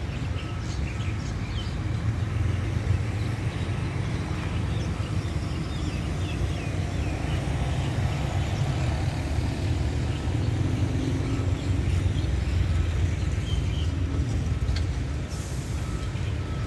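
Diesel locomotive running steadily on the move, a continuous low rumble heard from on board the train.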